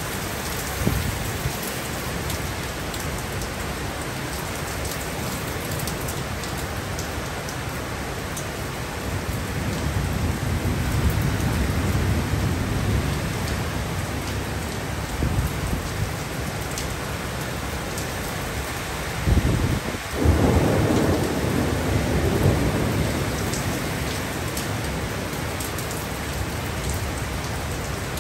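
Heavy driving rain pouring steadily, with thunder rumbling low and swelling about a third of the way in, then a louder crash of thunder about two-thirds through that rolls on for a few seconds.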